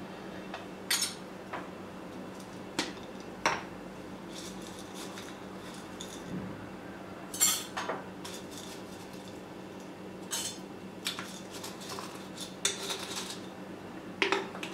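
Irregular clinks and taps of glass and metal as a glass teapot's stainless steel infuser and a glass jar are handled, with a faint rustle of dried loose tea being tipped into the infuser. The loudest clink comes about halfway through.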